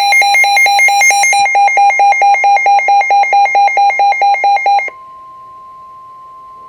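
Weather radio receiver's alert alarm beeping rapidly, about six or seven beeps a second. The beeping stops abruptly about five seconds in, leaving a quieter steady tone that runs on to the end.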